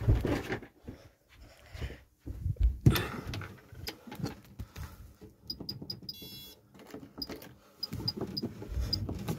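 Handling thumps and rustling, then an EMS FirePoint fire alarm control panel's keypad giving a run of short high beeps as its buttons are pressed, with one longer beep about six seconds in.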